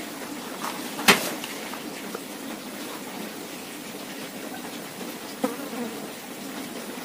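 A steady low buzz with a few knocks and taps over it; the loudest is a sharp knock about a second in, with a smaller one a few seconds later.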